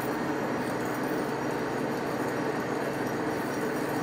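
Manual engine lathe running steadily at a low spindle speed of about 41 RPM, its gear drive humming, while a 12-pitch thread is single-point cut in the nut.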